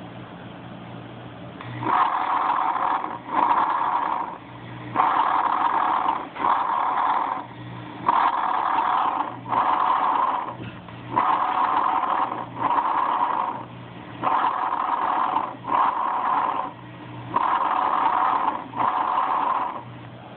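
Recorded lung breath sounds played back through a small speaker: six breaths about three seconds apart, each an inhale and an exhale of about a second apiece with a short break between. A steady low hum fills the pauses between breaths.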